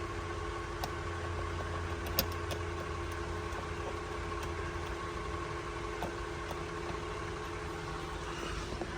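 Car engine idling steadily, with a few light clicks and one sharper click about two seconds in.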